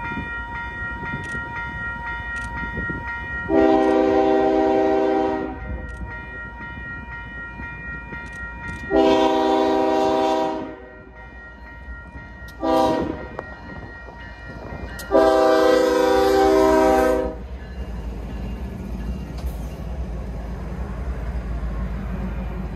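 Canadian Pacific GE ES44AC diesel locomotive's air horn sounding the grade-crossing signal: long, long, short, long. Under it a level-crossing warning bell rings steadily. Near the end the locomotive's engine rumble grows as it passes close by.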